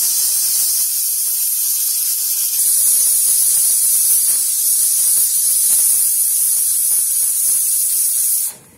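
Aluminium pressure cooker whistling: a loud, steady jet of steam hissing out past its weight valve, then cutting off suddenly near the end. The whistle is the sign that the cooker has reached full pressure, and the whistles are counted to time the rice: two in all.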